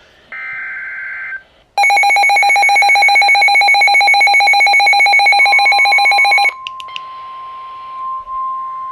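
NOAA weather radio receiving an Emergency Alert System warning: a brief warbling digital data burst from the station's SAME header, then the receiver's own loud, rapidly pulsing alarm beep for about five seconds, which cuts off suddenly. The station's steady 1050 Hz warning alarm tone comes in shortly before the beeping stops and carries on more softly afterwards.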